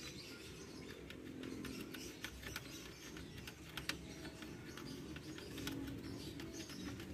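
Faint, scattered metal clicks and taps of a combination wrench working 10 mm bolts on an engine's air intake hose, over a low steady hum.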